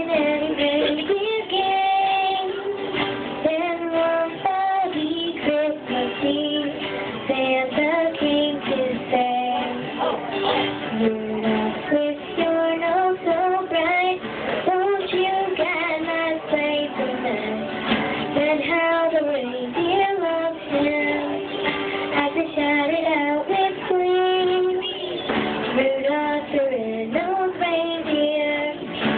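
A young female voice singing a song into a microphone, accompanied by her own acoustic guitar.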